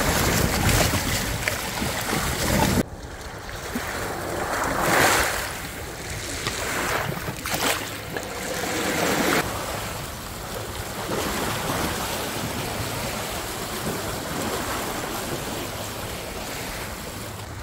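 Waves washing onto a sandy beach, with wind noise on the microphone. It swells and eases every few seconds, and a louder opening stretch cuts off sharply about three seconds in.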